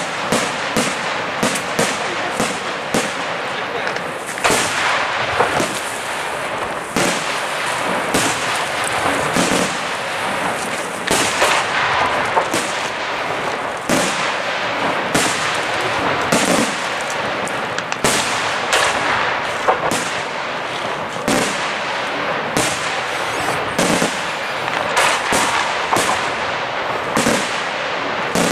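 Aerial firework shells bursting in rapid succession: a continuous run of sharp bangs, several a second, over steady crackling.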